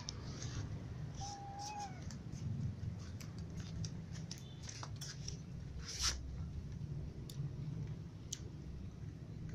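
Cats eating dry kibble, a scatter of short crisp clicks and crunches of pellets and teeth against plastic trays, the sharpest about six seconds in. A brief thin high call sounds about a second and a half in.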